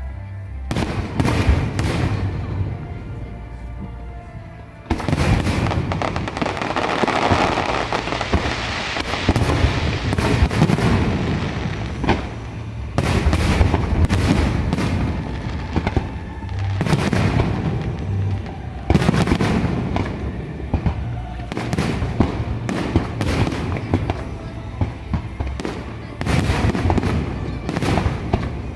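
Fireworks display: repeated sharp bursts and booms, with a dense stretch of crackling shells a few seconds in, over music playing underneath.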